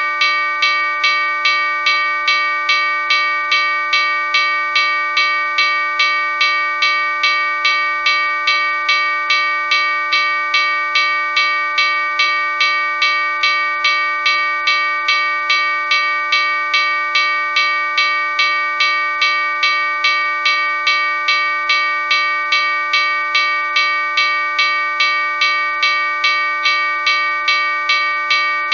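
Railroad crossing bell ringing continuously, its clapper striking the bell about twice a second in an even, unbroken rhythm, each strike leaving a bright, steady ring.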